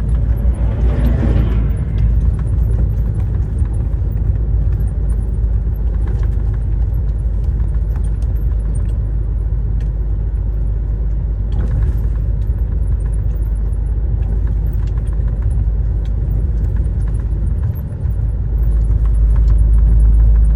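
Steady low rumble of a truck's engine and tyres on the road, heard from inside the cab while driving, with light rattles; the rumble swells louder near the end.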